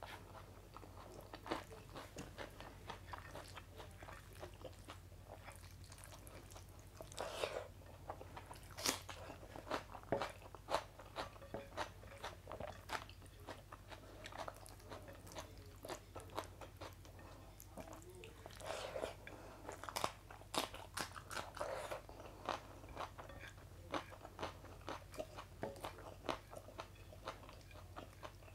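Close-miked chewing of curry-soaked rice eaten by hand, with wet lip smacks and many sharp mouth clicks. Denser bursts of chewing come twice, about a third of the way in and again past the middle.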